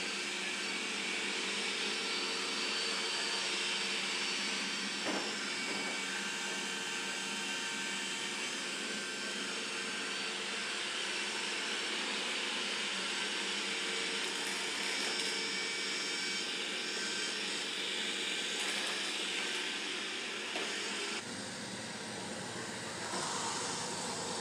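Roborock E4 robot vacuum running: a steady whir of its suction motor with a hiss. The sound shifts and drops slightly about 21 seconds in.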